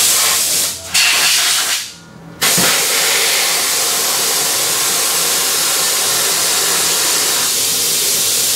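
Compressed air hissing at a race truck's front wheel: two short blasts, a brief gap, then a long steady hiss.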